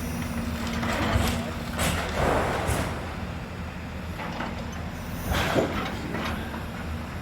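Heavy demolition machinery running with a steady low engine hum, with several loud crashes and scrapes of masonry: a cluster about one to three seconds in and another about five and a half seconds in.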